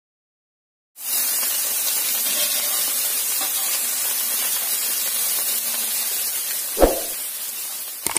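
Spice-coated small whole fish sizzling steadily in hot oil in a frying pan, starting about a second in and easing a little toward the end. A single dull knock sounds near the end.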